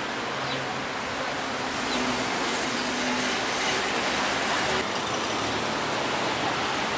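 Steady traffic noise of cars on a city street, a constant hiss that grows slightly louder about two seconds in.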